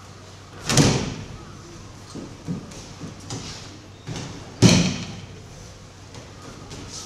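Aikido breakfalls: bodies slapping and thudding onto tatami mats, two loud falls about four seconds apart, with lighter thuds of feet and bodies on the mat between them.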